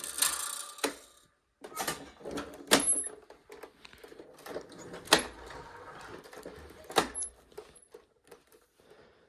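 Clicks, knocks and rattles of a vacuum cleaner's parts being handled. A dense rattling noise stops about a second in, then sharp clicks follow, the loudest about three, five and seven seconds in.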